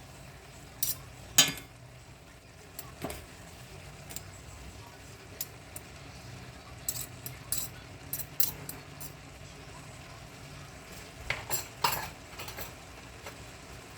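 Metal utensil clinking and scraping against a cooking pan while the pancit noodles are stirred. The clinks come in scattered groups, loudest near the start and again near the end, over a low steady background noise.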